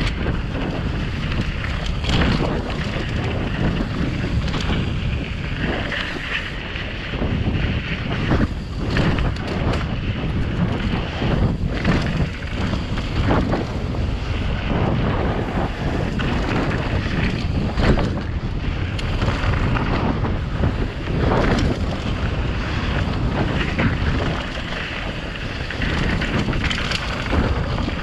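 Wind buffeting a helmet-mounted GoPro 7's microphone on a fast mountain bike descent, over the rumble of tyres rolling on loose hardpack dirt. The Giant Reign 27.5 mountain bike clatters over bumps and rocks in frequent short knocks.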